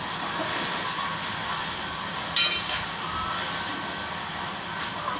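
A short, sharp metallic clink about two and a half seconds in, over a steady background hiss.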